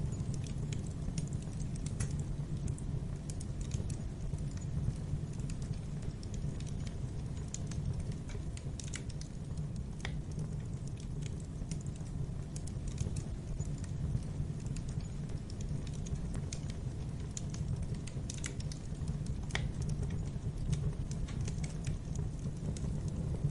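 Wood fire burning in a fireplace: a steady low rumble of flames with irregular crackles and sharp pops.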